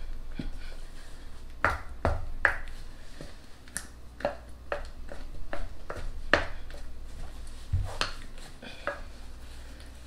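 A spoon stirring a thick, sticky mixture in a glass measuring cup, knocking and scraping against the glass in irregular clicks, a few of them sharper than the rest.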